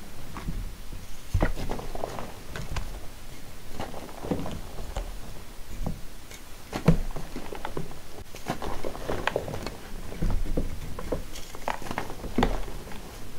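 Hands crushing and crumbling soft, powdery charcoal-dusted blocks: irregular crunches and dry crackles with soft thuds, the loudest crunch about halfway through.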